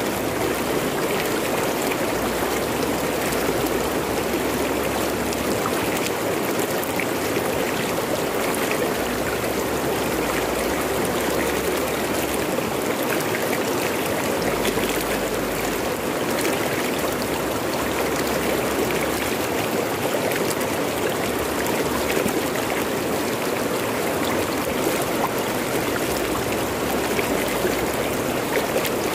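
Fast-flowing river rushing over rocks, a steady, unbroken rush of water.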